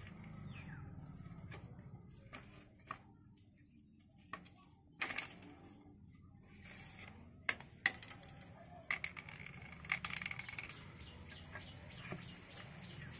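Wooden stick worked as a ramrod inside a PVC pipe cannon barrel, giving irregular sharp clicks and knocks, the loudest about five seconds in and a quick run of them around eight to ten seconds in.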